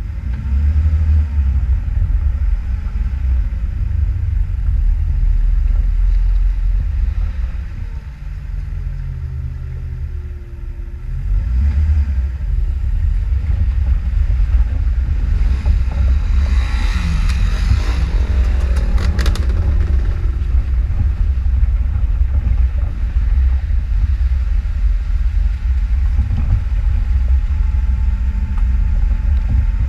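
Off-road vehicle's engine running with a heavy low rumble as it drives over rough ground, easing off briefly about eight seconds in and building up again a few seconds later. A short burst of noise with rapid clicks cuts in around seventeen seconds in.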